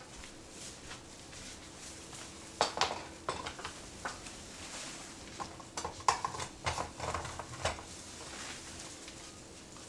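Light clinks and knocks of small hard objects, such as dishes or glassware, being handled and set down, in a cluster of a dozen or so strikes in the middle few seconds.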